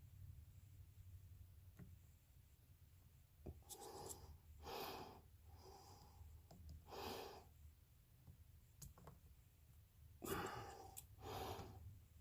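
Near silence over a low steady hum, broken by about six short breaths or sighs close to the microphone, mostly in the middle and near the end.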